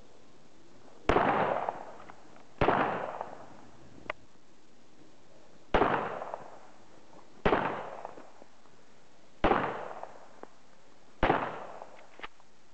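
Glock 21 .45 ACP pistol fired six times at an unhurried pace, a shot every one and a half to three seconds, each a sharp report with a short echoing tail. A few faint clicks sound between the shots.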